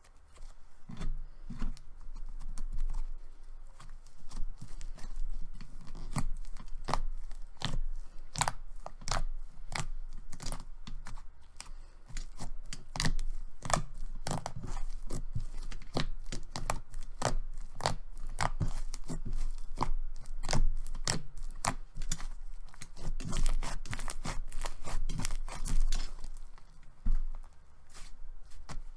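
Close-up crackling, crinkling and tearing from hands working something, a dense run of irregular sharp clicks with soft low thuds beneath.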